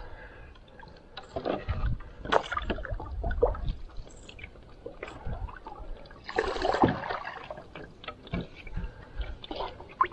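Canoe paddle strokes in lake water: the wooden blade dipping and pulling, with water splashing, gurgling and dripping off it in irregular bursts, the busiest about two seconds in and again past six seconds.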